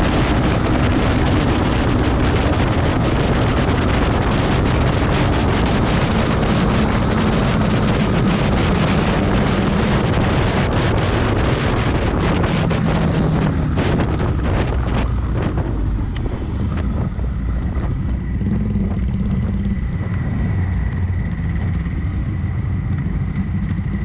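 Wind rushing over the microphone of a Suzuki Raider 150 Fi ridden at about 100 km/h, with the engine running beneath it. The bike slows through the second half, the wind noise dies away, and the low engine note is left as it rolls in at low speed.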